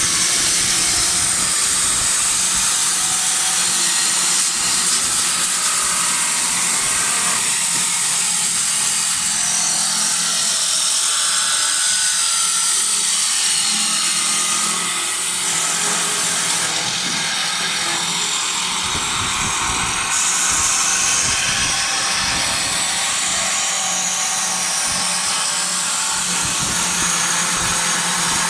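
Wood lathe running with a steady hum while its cutter turns a wooden blank, giving a continuous high shaving hiss whose pitch slides now and then as the cut changes.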